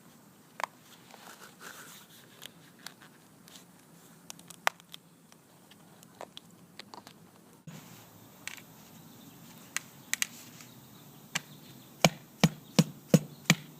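Hand work on a pool deck's expansion joint cap strip: scattered light clicks and taps, then near the end a quick run of about six sharp knocks, roughly three a second.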